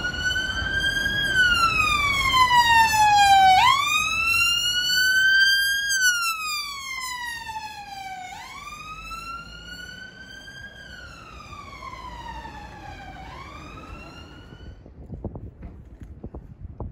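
Emergency ambulance siren wailing, its pitch sweeping slowly up and down in long cycles of a few seconds each, then fading out near the end.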